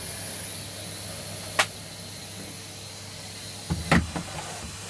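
A sharp plastic click, then a short cluster of knocks and clicks near the end, from vacuum cleaner attachments being handled and fitted together, over a steady background hiss.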